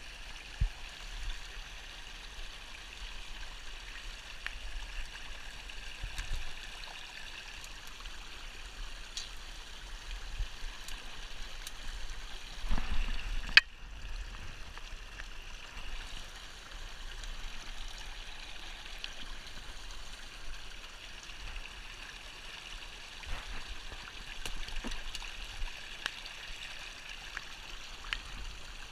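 Shallow creek running and trickling over stones in a steady, even wash. A few low bumps come through, and there is one sharp click about halfway, the loudest sound in the stretch.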